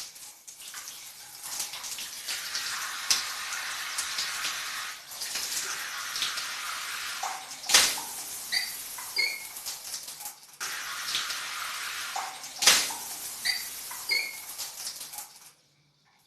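Shower water running and splashing, broken by two sharp knocks and a few short high squeaks; the water stops shortly before the end.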